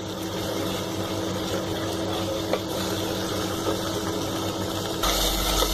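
Ground onion paste sizzling and bubbling in hot oil in a clay handi as its water cooks off, stirred with a spatula. A steady low mechanical hum runs beneath it.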